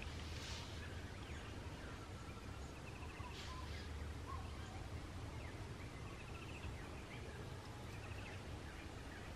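Faint outdoor bush ambience: a steady low rumble with scattered bird calls, including a short trill about three seconds in and another near the end.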